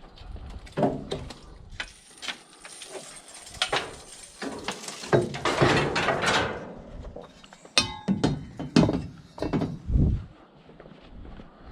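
Scrap metal being handled and loaded: irregular clanks, knocks and clinks, a scraping stretch around the middle, and a ringing metal clang about eight seconds in.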